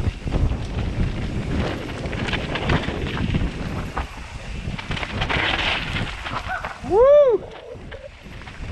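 Mountain bike descending a rough dirt trail, heard from a helmet camera: wind buffeting the microphone with tyres on dirt and the bike rattling over rocks and roots. About seven seconds in comes one loud, short rising-and-falling whoop from a rider.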